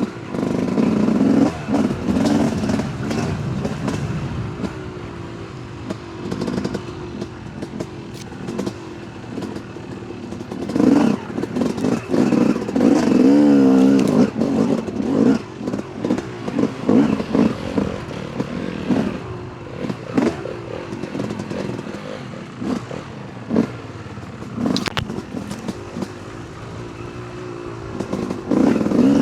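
Yamaha YZ250 two-stroke dirt bike engine revving up and down as it climbs over rough, loose ground. Clattering knocks from stones and the bike's chassis run alongside, and the engine is at its loudest in hard revving around the middle.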